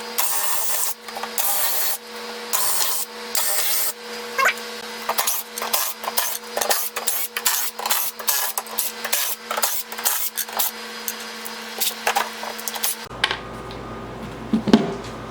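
Workshop tool and handling noise: several short bursts of harsh scraping in the first few seconds, then a quick run of clicks and knocks, with a steady hum underneath.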